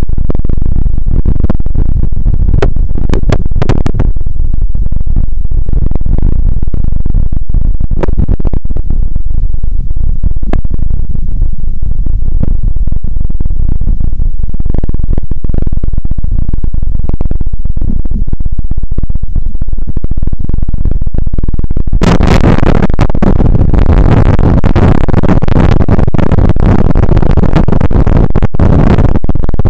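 Loud, distorted rumbling with scattered knocks: water and handling noise on a small camera dipped in and out of a river. About three-quarters of the way in it turns suddenly into a denser, louder rushing noise.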